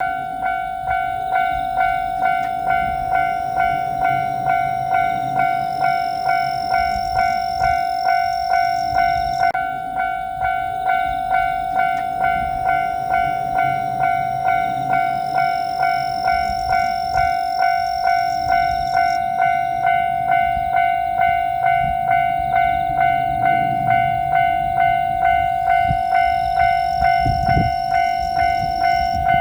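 Japanese level-crossing warning bell sounding its repeated 'kan-kan' dings in a steady rhythm, signalling an approaching train. A low rumble builds underneath near the end.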